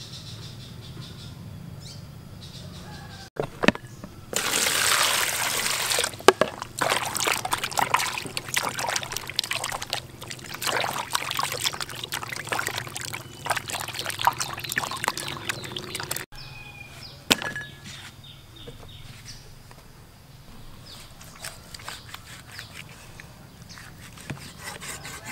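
Water poured into a plastic basin, then a raw cow heart rinsed and rubbed by hand in it, with steady splashing and sloshing. About two-thirds of the way through the sound drops to a quieter stretch with a few knocks of a cleaver cutting into the heart on a wooden chopping block.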